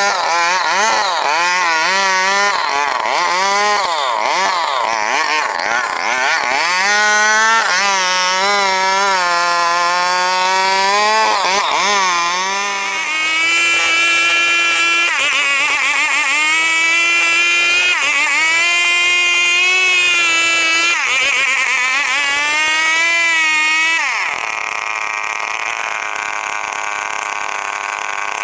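Stihl 070 two-stroke chainsaw running at high revs while cutting a log, its engine note wavering and dipping again and again. The pitch steps higher about halfway through, then drops to a lower, steadier note a few seconds before the end.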